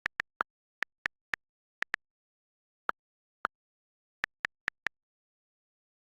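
iPhone on-screen keyboard key clicks as a message is typed: about fourteen short, sharp clicks in quick, uneven runs, a few of them lower in pitch than the rest.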